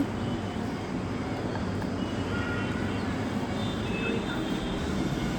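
Steady outdoor background noise, a constant even hiss and rumble, with a few faint, brief distant tones.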